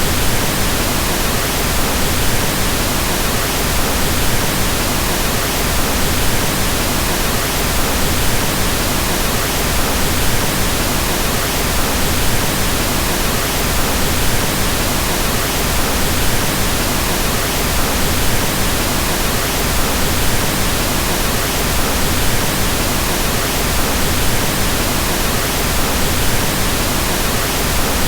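Steady synthetic pink noise: an even, unchanging hiss with its energy spread across the whole range and weighted toward the low end.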